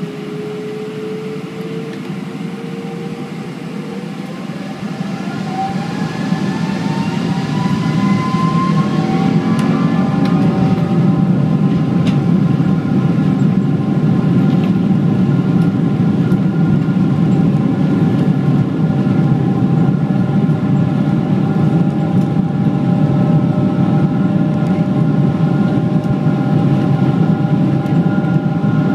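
Boeing 777-200's Rolls-Royce Trent turbofan engines spooling up to takeoff thrust, heard inside the cabin: a whine rises in pitch over the first ten seconds or so as the noise grows louder. After that the engines run at a steady loud level with a low rumble as the airliner accelerates down the runway.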